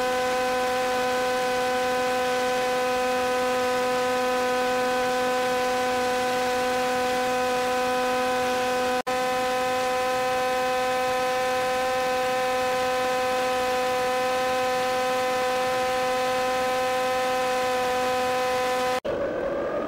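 Steady electrical buzz with static hiss, a fixed stack of even tones that never changes pitch, dropping out for an instant about nine seconds in. Near the end it cuts off abruptly and a different, motor-like sound takes over.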